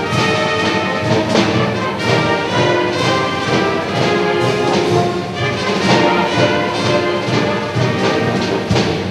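Orchestral music with prominent brass.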